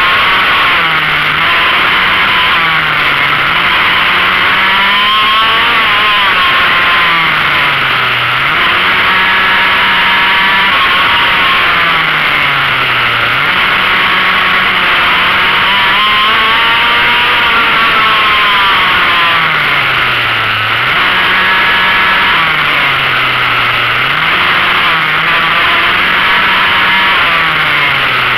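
Motorcycle engine at racing pace, heard from on board: it revs up and holds high revs along each short straight, then drops sharply when braking for a corner. This rise and fall repeats several times as the bike laps a tight circuit.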